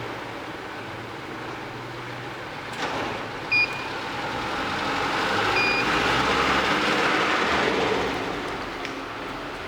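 Secure LD 26 M friction-feed banknote counting machine beeping twice with short high beeps, then its feed rollers running for about three seconds, a whirring rush as notes are drawn through.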